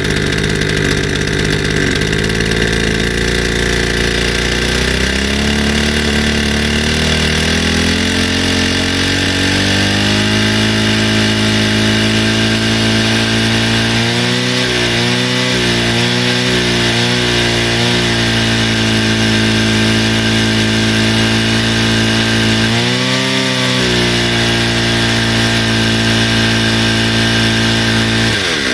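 Stihl FS160 brushcutter's two-stroke engine running, the machine now going after a service. Its speed climbs over the first several seconds and then holds, with a few brief dips in the middle and one more later. Near the end the revs drop sharply.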